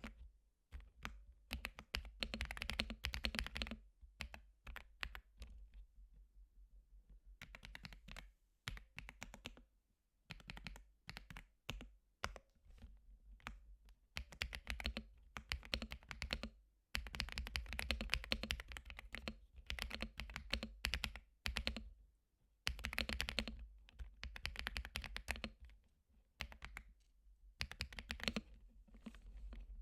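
Typing on a creamy-sounding computer keyboard: bursts of fast keystrokes with short pauses between them.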